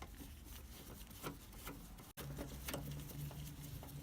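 Light scattered clicks and taps of a screwdriver and screws as the plastic corner lamp is screwed back onto the van. About halfway there is an abrupt break, after which a low steady hum runs under the clicks.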